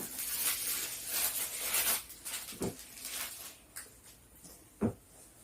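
Sputum being spat into a specimen container after effective coughing: a hissy noise lasting about two seconds, then three light knocks as the container is handled.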